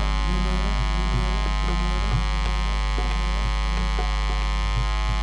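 Loud steady mains hum and electrical buzz on the stage sound system, with faint music underneath.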